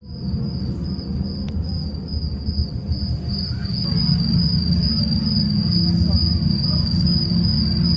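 Insects trilling outdoors: one steady, unbroken high-pitched tone, over a louder low rumble.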